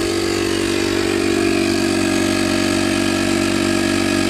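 Portable air compressor running steadily with an even, buzzing hum while it pumps up a pickup truck tire toward 40 psi.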